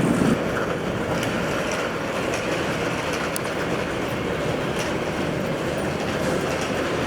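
Train rolling along the tracks, a steady rumble with a few faint clicks from the wheels.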